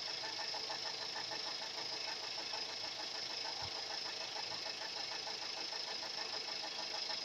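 Engine running with a steady, rapid rhythmic knock.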